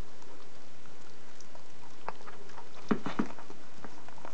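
Miniature dachshund chewing and licking at a piece of mandarin orange taken from a hand: scattered short wet clicks and smacks, with a quick cluster of them about three seconds in.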